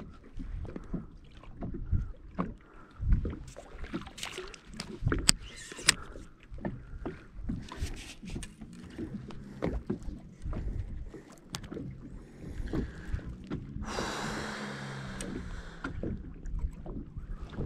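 Small waves lapping and knocking against an aluminium fishing boat's hull, with scattered clicks and knocks from a rod and reel being handled. A rushing hiss lasts about a second and a half, about fourteen seconds in.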